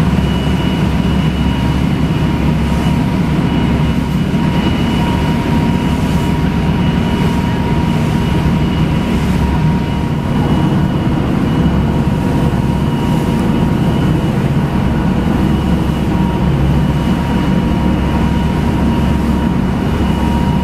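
Motorboat engines running steadily at speed: a continuous low rumble with a thin steady whine above it, mixed with the rush of wind and water as the hull runs through chop.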